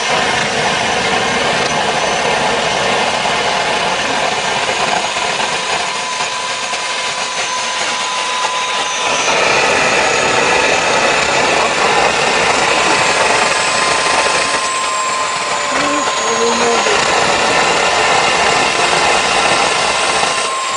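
Homemade gas-fired turbocharger jet engine running: a loud, steady rushing roar of combustion with a steady whine from the spinning turbocharger. It grows louder about nine seconds in.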